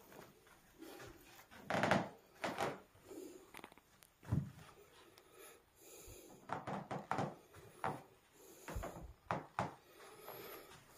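Scattered soft knocks and rubbing sounds in a small room, irregularly spaced. The strongest comes about two seconds in, a low thud follows a little after four seconds, and a cluster runs between six and ten seconds.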